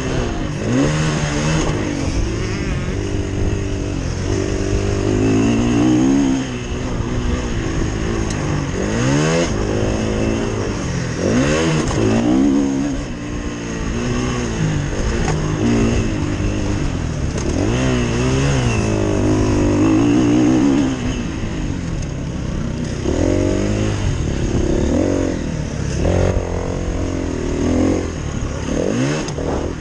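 KTM 350 EXC-F's single-cylinder four-stroke engine revving up and falling back again and again as the rider works the throttle and gears around a motocross track, heard from a helmet-mounted camera.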